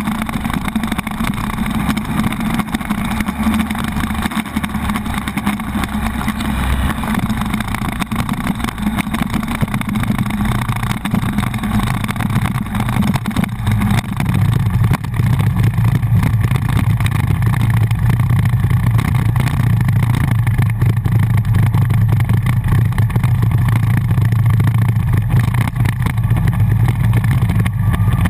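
Buell XB9SX's V-twin engine running while the motorcycle is ridden, heard from a camera mounted on the bike. About halfway through, the low engine note becomes louder and steadier.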